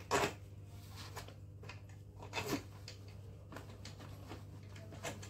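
A plastic tricycle seat being worked by hand onto its mounting screws: a few short plastic knocks and rustles, the loudest just after the start and another about two and a half seconds in, over a steady low hum.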